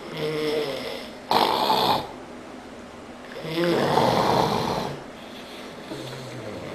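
A sleeping man snoring heavily, with a rattling snore on each breath. There are two big breaths about three seconds apart, each a droning rattle followed by a louder breathy rush, and a softer snore begins near the end.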